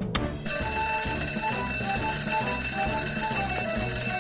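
Electric alarm bell ringing continuously, starting abruptly about half a second in, over a cartoon rescue theme tune with a bass rhythm and a short melody.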